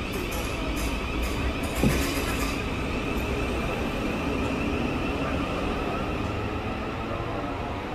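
Class 707 Siemens Desiro City electric multiple unit pulling out of the platform: a steady rumble of wheels on rails. Several short high-pitched bursts come in the first couple of seconds, and a single knock about two seconds in.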